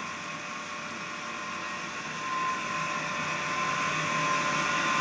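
Water filling a tub: a steady rushing hum with a thin whine, growing louder about two seconds in.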